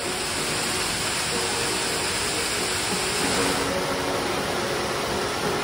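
River water rushing, a steady, even rush with no breaks. Quiet background music sits underneath.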